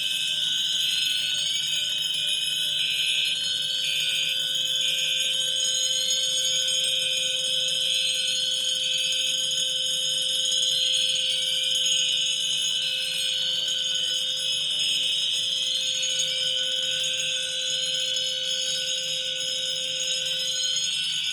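Several fire alarm signalling devices sound together. A steady high-pitched tone is joined by a rising whoop that repeats about once a second and by a pulsing tone, all continuous.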